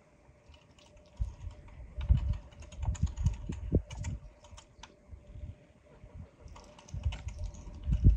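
Metal hand-cranked meat grinder being turned: irregular clicking and low knocks from the crank and auger as food is forced through, heavier at times.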